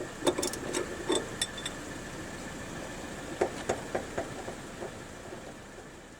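A run of sharp clicks and knocks in two clusters, one at the start and another about three and a half seconds in, over a steady hiss and a faint steady high tone.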